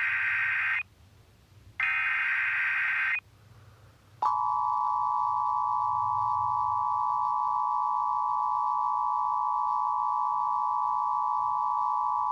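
Emergency Alert System test tones: two buzzing digital header bursts of about a second and a half each, then from about four seconds in a steady alert tone of several pitches sounding together, the EAS attention signal reworked as a G major 7 chord.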